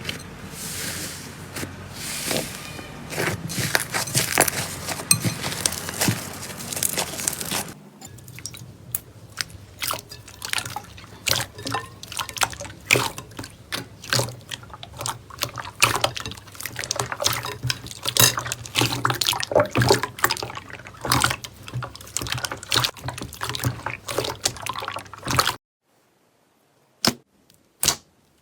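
Slime being squeezed and pressed by hand, giving many short wet clicks and pops. The texture changes abruptly about 8 seconds in. Near the end there is a brief silence and then a few separate sharp clicks.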